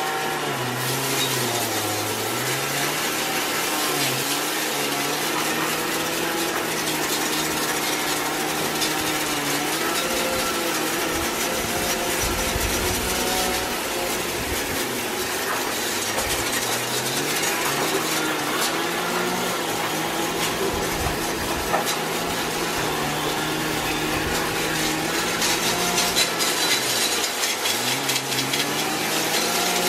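Water spraying from a garden hose onto a steel wire dog crate and the concrete under it, a steady hiss with a low hum that wavers slowly up and down in pitch.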